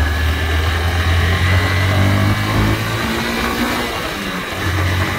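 Motorcycle engine running while riding along a road, with wind rushing over the microphone. The low engine hum changes about three seconds in.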